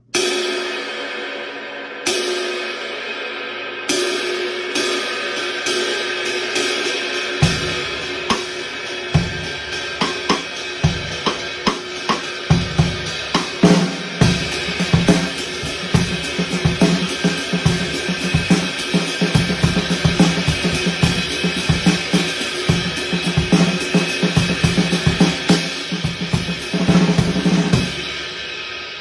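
Drum kit played with Amedia handmade Turkish cymbals: three cymbal crashes about two seconds apart open into steady cymbal playing. Bass drum and snare come in sparsely, then settle into a full groove, which closes with a loud hit and a fading cymbal wash near the end.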